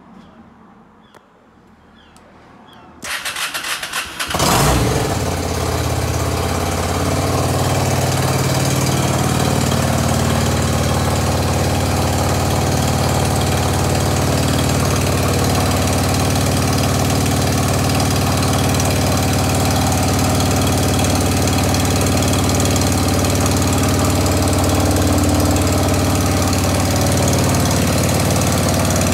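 Honda VRX400's air-cooled 400cc V-twin cranked on the starter for about a second, catching about four seconds in and settling into a steady idle.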